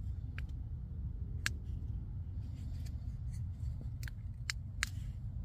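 A few short, sharp plastic clicks from a rechargeable hand warmer, its power button pressed and its case handled while it is being switched on, over a steady low rumble.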